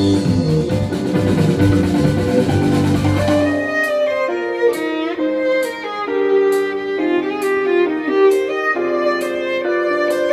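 Live violin and double bass duo playing; about four seconds in the double bass drops out and the violin carries on alone with a line of separately bowed notes.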